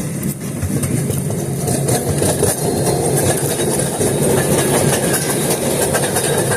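Ride-on mini train running along its track: a steady rumble with fast clicking, growing louder over the first couple of seconds.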